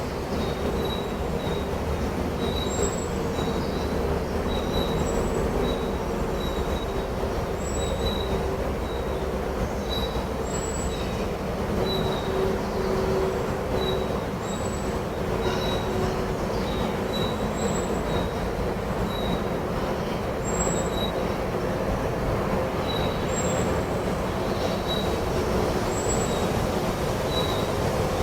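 Birds calling with short, high chirps repeated about once a second, with a higher note every couple of seconds, over a steady rushing background noise.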